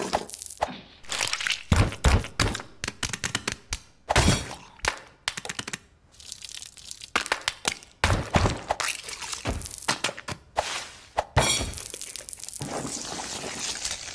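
Rapid, irregular series of crunching, cracking and slapping impacts as food is dropped, piled and crushed onto a metal baking tray.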